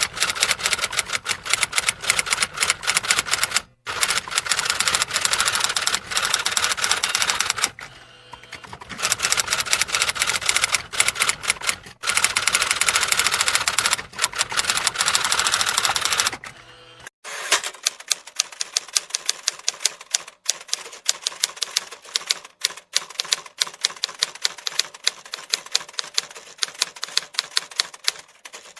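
Typewriter keys being struck in rapid, continuous clacking, with brief pauses. About two-thirds of the way through the sound changes to a thinner, sparser clacking.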